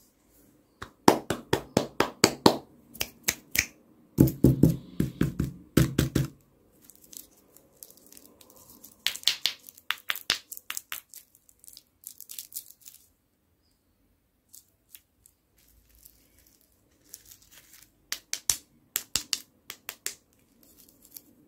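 Plastic lollipop wrappers crinkled and torn open by hand: bursts of sharp crackling with quiet gaps between them.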